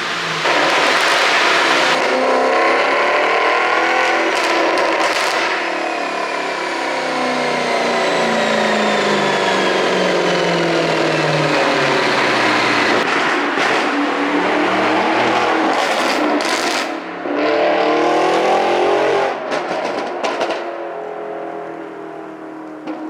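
Maserati GranTurismo 4.7's V8 exhaust revving up and falling back several times. Sharp pops and crackles come on the overrun, the effect of an ECU exhaust-pop tune. It ends quieter as the engine settles.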